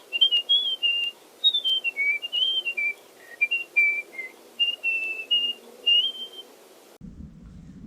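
A person whistling a tune: one clear pitch stepping up and down between short held notes, stopping about six and a half seconds in. A low steady hum takes over at the end.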